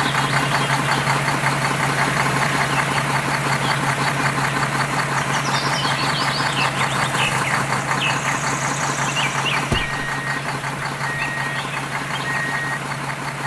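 A small motor running steadily with a fast, even rattle, its level sinking slightly toward the end.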